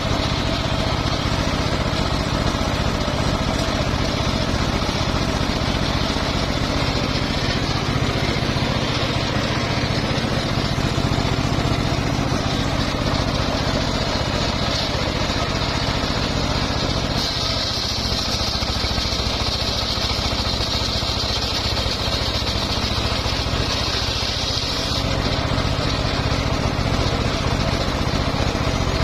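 Homemade engine-driven circular sawmill running steadily, with a higher-pitched whine rising over the engine for several seconds past the middle as the blade works through the mahogany log.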